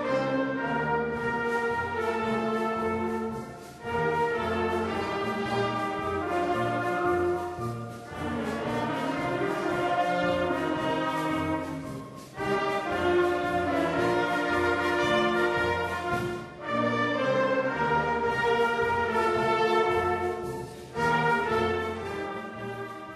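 Brass band music with horns, trumpets and low brass playing a tune in phrases of about four seconds, fading out near the end.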